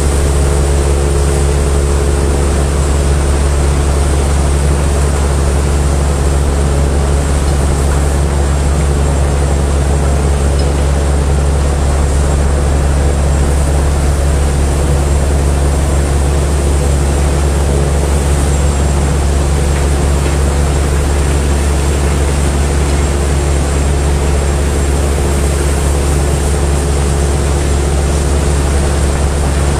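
Heavy engine of the barge-unloading machinery running at a steady low drone, with a constant hiss over it and no change throughout.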